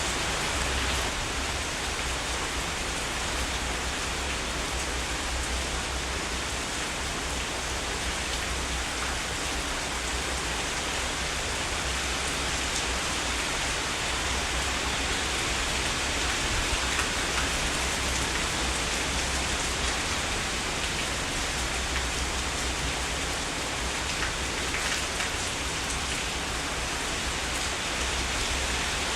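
Heavy rain falling steadily: an even, unbroken hiss with a low steady rumble underneath.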